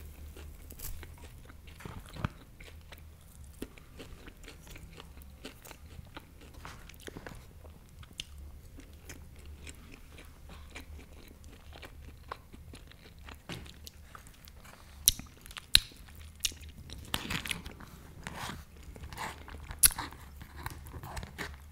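Close-miked chewing of a tough beef steak, with small wet mouth clicks throughout and a few sharper, louder clicks in the last several seconds.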